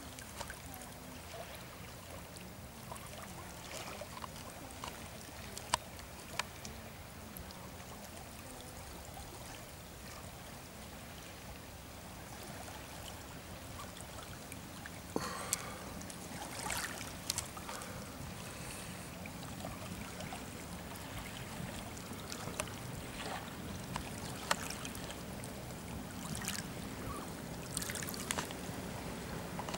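Small waves lapping and splashing at the water's edge, with a motorboat engine's low drone growing louder toward the end.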